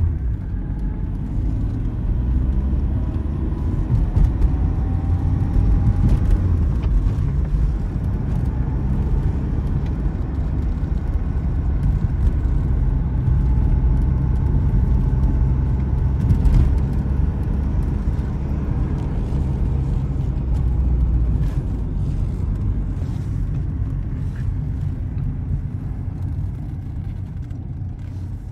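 Engine and road noise inside the cabin of a 1990 Volkswagen Jetta with a 1.8-litre four-cylinder petrol engine, driving along at steady speed. The noise is a continuous low rumble that eases slightly near the end.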